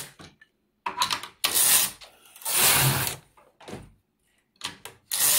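Carriage of an Empisal 560KL domestic knitting machine being pushed along the metal needle bed, heard as several short, noisy sliding passes with brief pauses between them.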